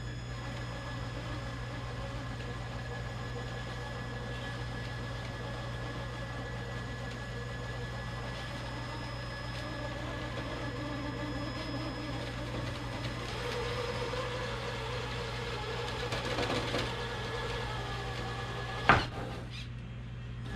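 Traxxas TRX4 electric RC rock crawler's motor and drivetrain whining steadily as it strains up a 52-degree quartz slab without making it, the sound growing in the second half. One sharp knock near the end.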